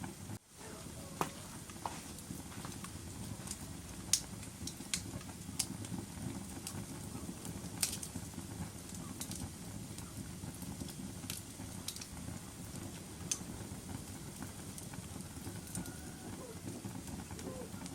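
Wood fire burning in a fireplace: a steady low rumble of flames with irregular sharp crackles and pops. The sound drops out for a moment about half a second in.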